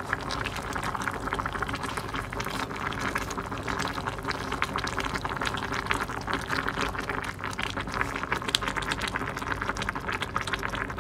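Vegetable soup boiling in a glass pot: a steady, dense bubbling and crackling, with a ladle being stirred through the vegetables and broth.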